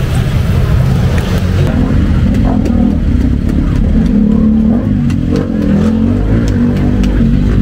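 Motor vehicle engine running close by over steady street traffic rumble, its pitched note wavering and swelling for a few seconds in the middle.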